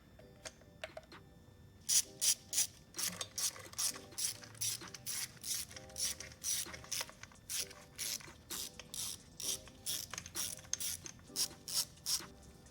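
A 1/4-inch drive ratchet clicking as it turns a 10 mm fastener, faint at first, then in quick strokes of about three clicks a second from about two seconds in.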